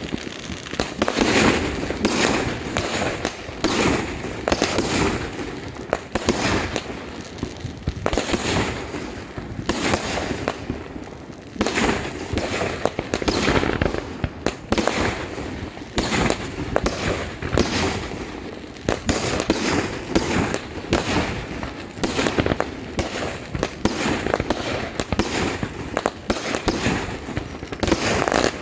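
Fireworks and firecrackers going off nonstop: a dense run of sharp bangs and crackling, with louder volleys every second or two.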